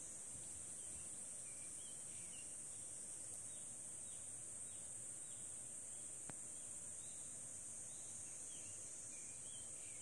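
Steady high-pitched insect drone, with faint short bird chirps scattered through it and a single sharp click a little past halfway.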